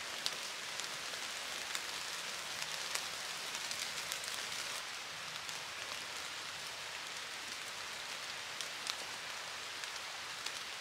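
Rain falling on the leaves and branches of the forest: an even hiss, with scattered sharper ticks of single drops.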